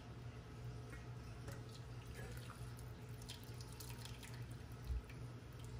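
Faint dripping and splashing of ramen noodles and cooking water falling from a stainless steel pot into a glass bowl, with a soft low thump about five seconds in.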